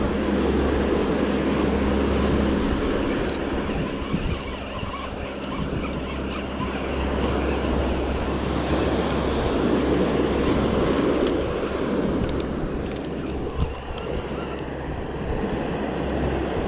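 Ocean surf washing onto a sandy beach, with wind rumbling on the microphone.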